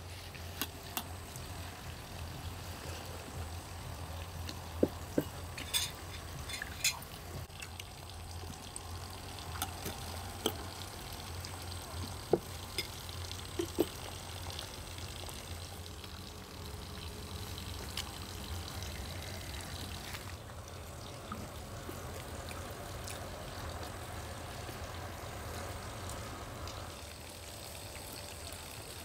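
Spoons and forks clicking against plates and bowls as people eat: a scattering of sharp clicks in the first half, over a steady background hiss and low hum.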